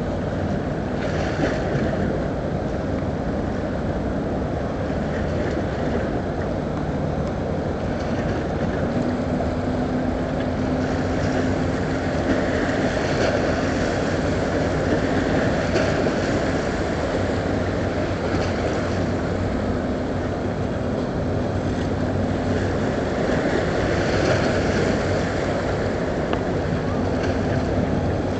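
Steady low drone and hum from the cargo ship Westwood Columbia passing close by, with a higher hum tone joining about a third of the way through, over wind on the microphone and water.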